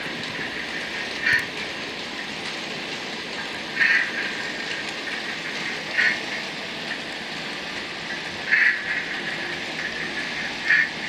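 OO gauge Hornby Class 60 model locomotive and its train of Accurascale PCA cement wagons running on the track: a steady whirring rattle of model wheels and motor, with a short louder sound about every two and a half seconds.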